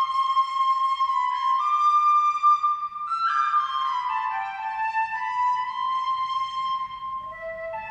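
Music: a slow, solo melody of long held high notes, sliding down between notes now and then.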